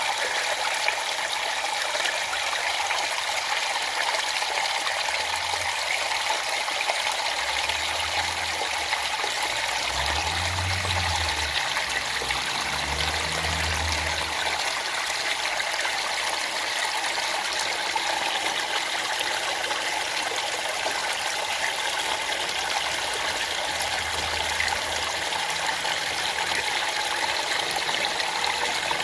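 Steady rushing hiss of falling or running water, with a faint low rumble under it for several seconds around the middle and briefly again near the end.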